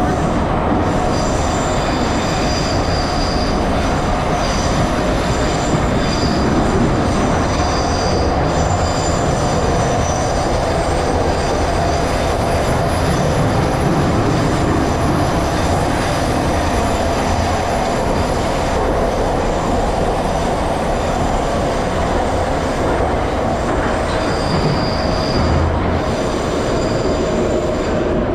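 Ezh3 metro car running through a tunnel, heard from inside the passenger car: a steady loud rumble of wheels on rails. A high, thin wheel squeal comes and goes over it, strongest a few seconds before the end.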